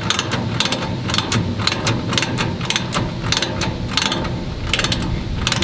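Socket ratchet wrench clicking in quick runs as its handle is swung back and forth, tightening a bolt through a steel cart frame.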